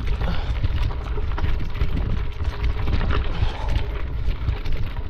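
Bicycle riding over a gravel trail: tyres crunching on loose stones with many small knocks over bumps, and wind buffeting the microphone as a constant rumble.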